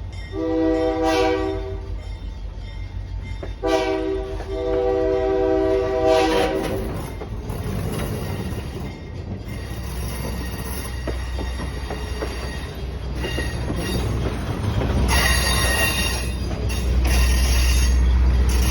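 Excursion train's horn sounding two blasts, a short one and then a longer one, followed by the train rolling past with a low rumble that grows louder near the end and a brief high wheel squeal about fifteen seconds in.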